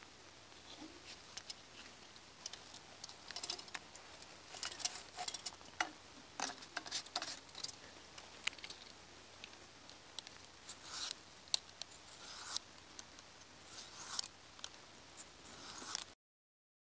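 Knife blade being drawn across a wetted Opinel natural sharpening stone: a run of short, irregular scraping strokes, busier from about four seconds in. The sound cuts off suddenly just before the end.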